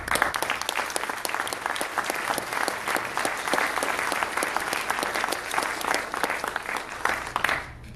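Audience applauding: dense, many-handed clapping that starts all at once and dies away near the end.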